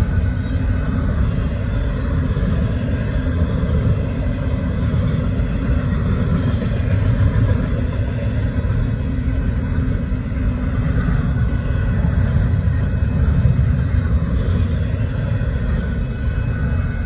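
Union Pacific intermodal freight train's double-stack container cars rolling past a grade crossing: a steady, loud rumble of cars on the rails with no break.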